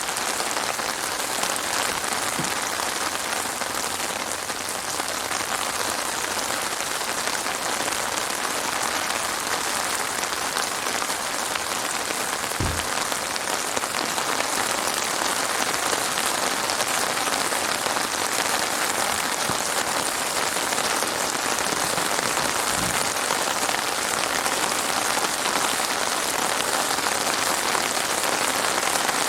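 Heavy rain falling steadily: a dense, even hiss of drops on surfaces, with a few brief low thuds spread through it.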